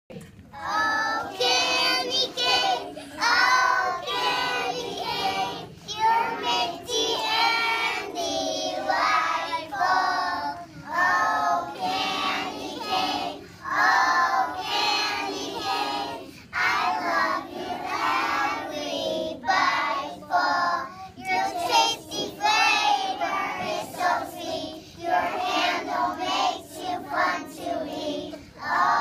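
A group of young children singing a song together in unison, in phrases that run on through the whole passage.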